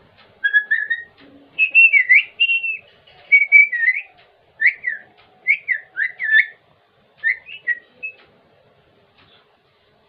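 Common myna giving a run of short whistled notes that slide up and down in pitch, in broken phrases that stop about eight seconds in.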